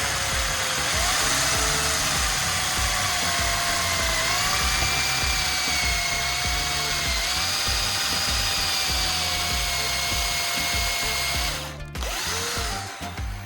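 Electric drill motor running under load with a steady whine that shifts slightly in pitch as it bites, stopping abruptly about twelve seconds in. Background music with a steady beat plays underneath.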